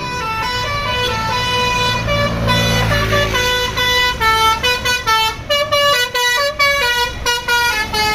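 Tour bus basuri melody horn playing a quick tune of short notes that step up and down in pitch, getting choppier with brief gaps from about four seconds in, over the bus's engine running.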